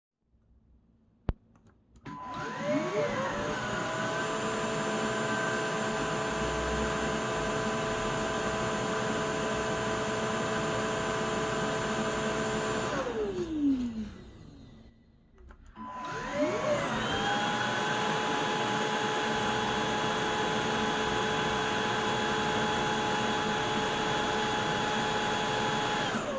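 Xiaomi Shunzao Z11 cordless stick vacuum switched on with a click, its motor whining up to speed and running steadily for about ten seconds, then winding down with a falling whine. After a short pause it starts up again, runs steadily, and begins to wind down at the very end.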